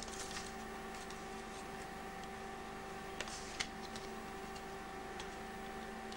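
A few faint, scattered clicks and light handling noise from fingers lifting and turning the plastic chassis and circuit board of a small portable cassette player, over a steady hum.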